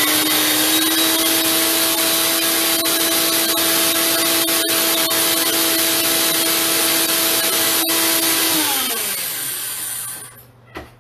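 Personal countertop blender motor running at full speed, a loud steady whir over the noise of cauliflower being chopped into rice, held for about nine seconds. Then it winds down with a falling whine as it is let go, and a click follows near the end.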